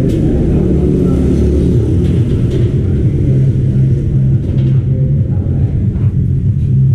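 Loud, steady low machine hum with a rumble underneath, running unbroken.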